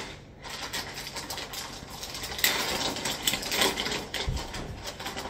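Clear plastic bag crinkling and rustling as it is handled, in irregular spells that get busier from about halfway, with a couple of soft low thuds near the end.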